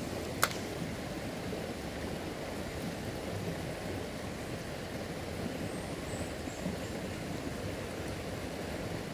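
Rocky forest stream flowing steadily over stones, with one sharp click about half a second in.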